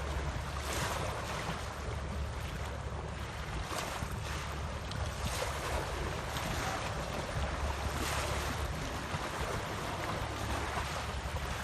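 Sea waves washing on the shore, mixed with wind on the microphone: a steady rushing with a low rumble and a few faint ticks.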